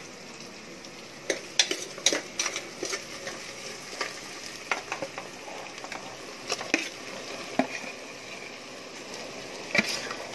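Masala-marinated prawns scraped with a metal spoon from a steel bowl into hot oil with fried onions: a steady sizzle under repeated sharp scrapes and clinks of spoon on bowl and pan.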